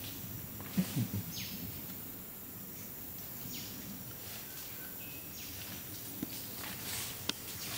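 The last few low pulses of a flanged male Bornean orangutan's long call about a second in, as the call dies away. Then a steady rainforest background with short high chirps and a couple of sharp clicks near the end.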